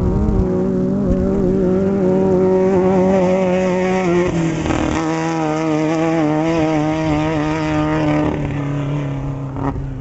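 Off-road desert race vehicle running hard at full throttle as it passes close by. Its engine note drops in pitch about four seconds in as it goes past, then slowly fades toward the end.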